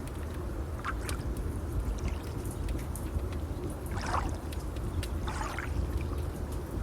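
Nature ambience: a steady low wash of water, with three short bird calls about a second in, near four seconds and near five and a half seconds, over faint fire crackles.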